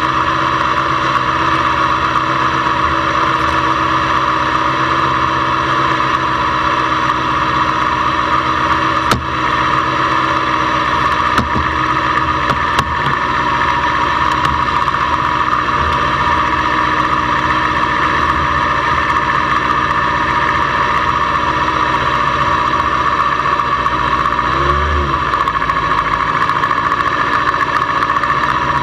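Motorcycle engine idling steadily, picked up by a camera mounted on the bike. A few sharp knocks in the middle from hands handling the camera, and a brief rise and fall in pitch near the end.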